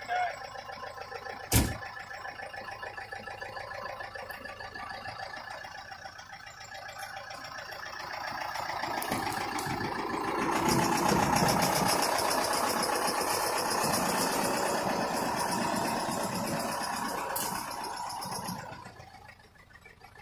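David Brown 1212 tractor's three-cylinder diesel engine running while it moves a compressor, getting louder from about eight seconds in and easing back near the end. A single sharp knock about a second and a half in.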